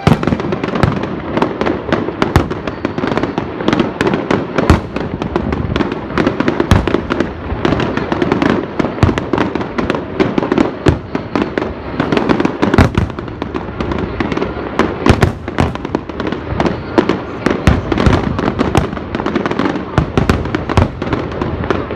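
Aerial fireworks display going off in a dense, continuous barrage: many sharp bangs and crackling reports in quick, irregular succession, starting abruptly and never pausing.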